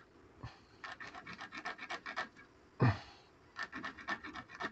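Worn serrated edge of an old diving knife sawing across a thin line, in two runs of quick rasping strokes with a pause between, and one louder sound about three seconds in. The worn serrations catch and fray the line rather than cut it.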